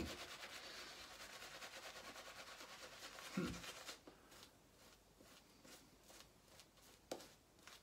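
Shaving brush scrubbing lather onto the face: a faint, rapid, bristly rubbing that thins out after about four seconds to a few soft strokes.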